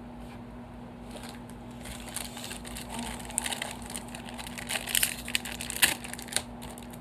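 Packaging being crinkled and handled in irregular rustling crackles as a small plastic model horse is unwrapped, with the loudest crackles near the end, over a faint steady hum.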